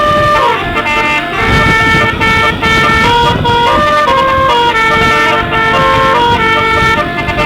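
A bus's basuri musical horn (the 'telolet' horn) playing a tune of held notes. Each note is several horn tones sounding together, and the notes change about every half second. A low rumble runs beneath.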